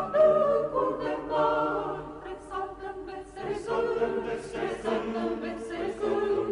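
A choir singing a cappella, several voices holding long notes together.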